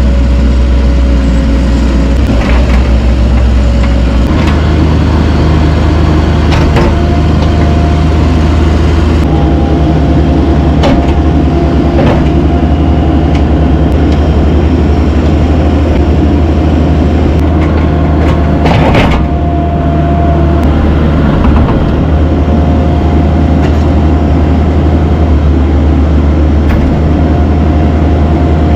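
Heavy construction machine's diesel engine running steadily under work, with a steady whine over it and several sharp knocks, the loudest about nineteen seconds in.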